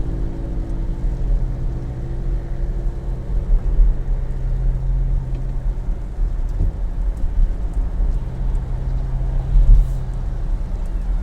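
Car driving, heard from inside the cabin: a steady low road and engine rumble with a low drone that fades after about three seconds and comes back near the end.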